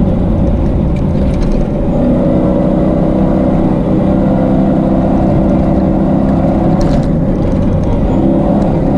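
Toyota Tacoma rally truck's engine running hard at fairly steady high revs, heard from inside the cabin, with a brief dip about two seconds in.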